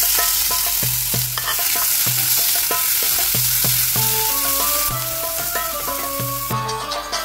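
Chopped onions sizzling in hot oil in a stainless steel frying pan while being stirred with a wooden spatula. The sizzle starts abruptly and eases a little about five seconds in.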